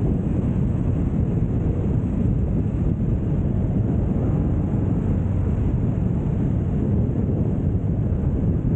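Steady wind noise buffeting the microphone of a rider at speed, over the low running drone of a Kymco AK 550 maxi-scooter and its tyres on the road.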